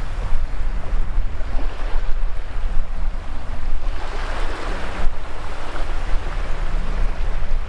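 Small waves washing in over shallow water at the shoreline, with a louder surge of wash about four seconds in, over a steady low rumble of wind on the microphone.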